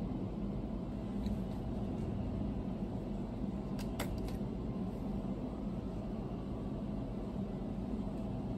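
Steady low background rumble and hum, with a few faint short clicks about four seconds in.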